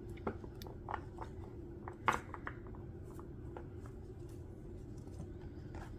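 Faint taps and rustles of a deck of oracle cards being handled, as the top card is lifted and slid off the deck, with the loudest tap about two seconds in, over a low steady hum.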